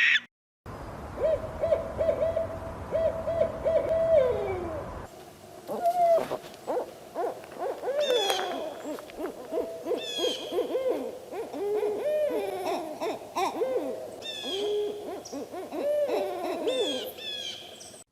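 Owl hooting in a quick series of short notes at one pitch, ending in a falling note, over a steady hiss. About five seconds in, the recording changes to several owls hooting over one another, mixed with higher, falling calls.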